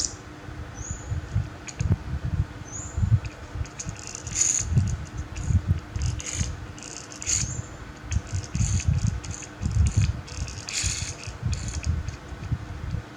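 Small plastic toys being handled: irregular bursts of light rattling and scraping over soft handling bumps and knocks.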